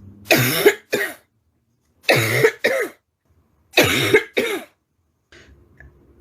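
A woman's barking cough, persistent: three bouts of two coughs each, a longer cough followed by a short one, the bouts about a second and a half apart.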